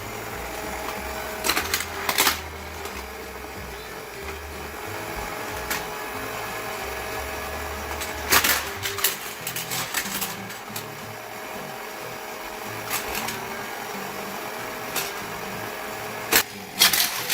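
Battery-powered toy race track's motor whirring steadily as toy die-cast cars are sent around the plastic track, with sharp plastic clacks a few times and a cluster of them near the end as the cars hit and crash.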